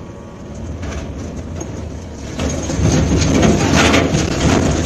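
A barge's load of timber logs sliding off and tumbling into the water: a growing rumble and wooden clatter with heavy splashing, building about two seconds in and loudest near the end.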